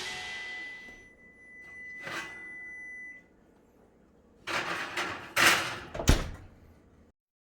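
Handling noises: a brief rustle, then a cluster of scraping, rustling sounds and a single sharp thunk about six seconds in. A faint steady high tone runs through the first three seconds, and the sound cuts off abruptly near the end.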